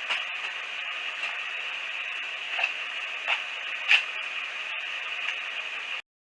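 Mercedes-Benz SLK350 Vario roof mechanism running, a steady mechanical hum broken by short creaks where the right quarter-window glass rubs against its rubber seal. The owner puts this friction noise down to the rubber swelling in the heat, and it persists despite silicone grease. It cuts off suddenly near the end.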